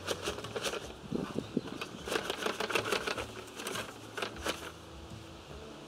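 Paver sand poured out of a plastic bucket onto a gravel base: a rustling stream of falling grains with many small clicks, thinning out near the end.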